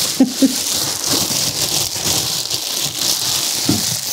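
A steady, rain-like crackling hiss.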